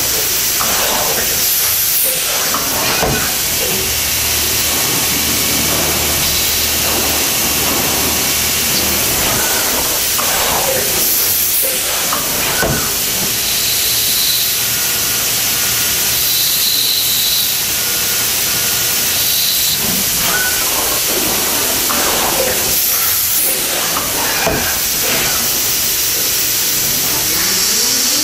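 HORKOS NS70 multi-tasking machining center running a cut, with a steady loud hiss of coolant spray and scattered short knocks. A whine rises in pitch near the end as a spindle spins up.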